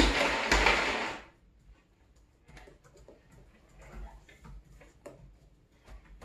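A brief rushing noise in the first second, then scattered light plastic clicks and taps as the drum of a toy cement mixer truck is turned by hand.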